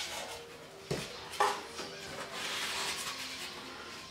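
Packing being pulled out of a cardboard box from around a metal ventilator cabinet: two sharp knocks about one and one and a half seconds in, then rubbing and rustling of cardboard and foam.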